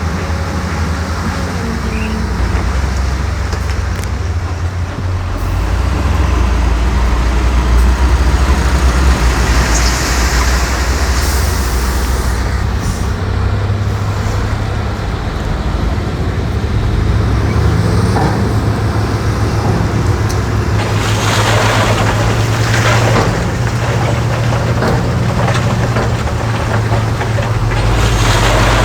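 Heavy diesel construction machinery running with a steady low engine drone, joined in the last third by several rushes of scraping, rattling noise.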